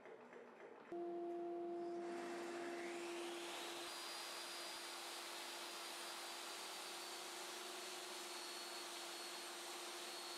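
Job site table saw switched on about a second in and running free with a steady motor whine. A rushing air noise builds up over the next two seconds and then holds steady. The blade is not yet cutting.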